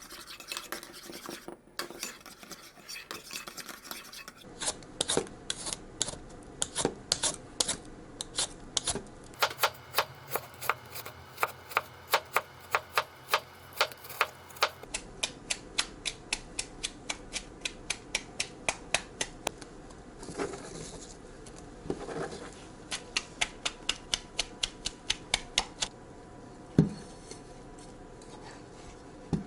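Kitchen utensils striking and scraping a pan or dish, in a steady rhythm of about two to three sharp clicks a second, across several short edited stretches.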